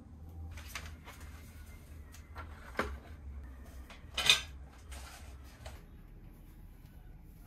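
A few hard clattering knocks and clicks of bike helmets being hung on the metal hooks of a wooden wall rack, the loudest about four seconds in.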